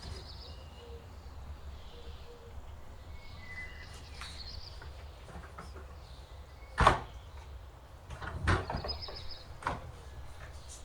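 Small birds chirping, with three sharp knocks about seven, eight and a half, and ten seconds in, the first the loudest.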